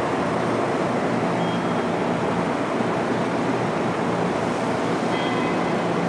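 Steady, loud running of a GMC RTS transit bus's Detroit Diesel 6V92 two-stroke diesel engine, echoing in an underpass.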